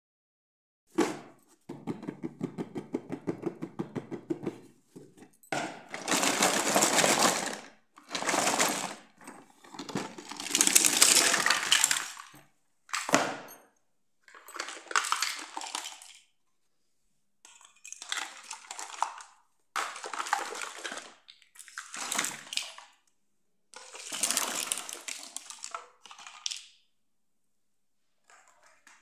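Small hard plastic toys and doll-furniture pieces clattering and knocking together on a tile floor, in a series of separate bursts of a second or two each. There is a rapid, even rattle a couple of seconds in.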